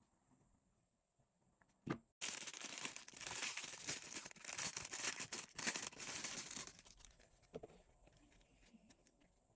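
Stationery packaging being torn open and crinkled by hand, a crackly tearing for about four and a half seconds, preceded by a single knock and followed by faint handling clicks.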